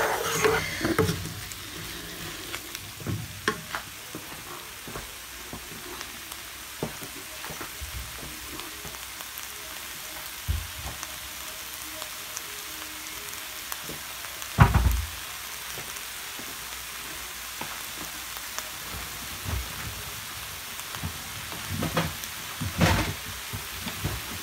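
Mushrooms, spinach and chicken sizzling steadily in a frying pan, with a wooden spoon scraping through them at the start. Occasional knocks, the loudest a low thump about halfway through.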